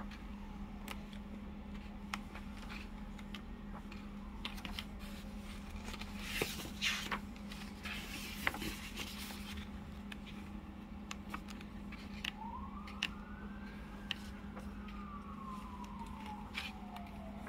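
Pages of a paperback textbook being flipped and handled: paper rustles and small clicks, loudest in two brief stretches about a third and halfway through, over a steady low hum. Near the end a faint wailing tone rises, then slowly falls.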